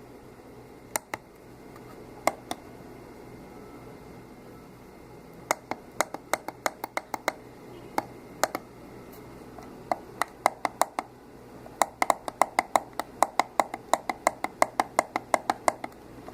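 Pushbuttons on a homemade Arduino alarm clock clicking as they are pressed: a few single clicks and pairs at first, then quick runs of presses, about four or five a second near the end.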